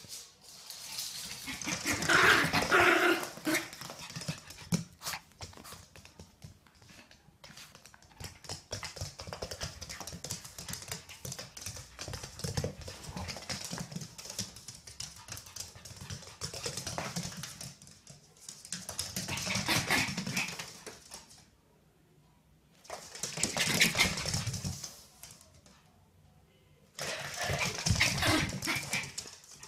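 A small long-haired dog vocalising in four loud outbursts: one about two seconds in and three close together in the last ten seconds. Quieter clicking and scuffling fill the gaps between them.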